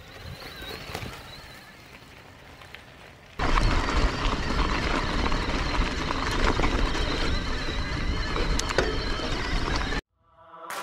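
Riding noise from the Frey Evolve e-mountain bike climbing a gravel track. It is fairly quiet for the first three seconds or so, then turns loud and steady, with heavy wind rumble on the helmet-camera microphone over the crunch of tyres on gravel. It cuts off abruptly about a second before the end.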